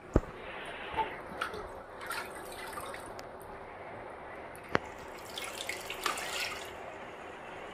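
Water dripping and splashing from a soaked sponge roller mop as it is lifted out of a bucket of water, heaviest a little past the middle. Two sharp clicks, one right at the start and one just before the splashing.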